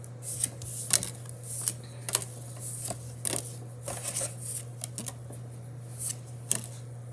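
Pokémon trading cards being flipped one by one through a hand-held stack, each card giving a short papery swish and flick, about once or twice a second at an uneven pace.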